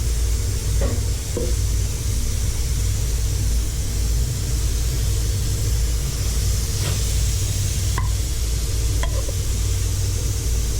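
Steady machine hum with a sizzling hiss and a few faint ticks.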